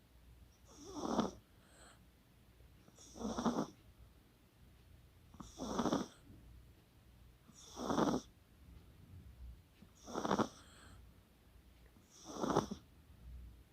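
A chihuahua snoring: six short snores, one about every two seconds, each swelling and then stopping abruptly.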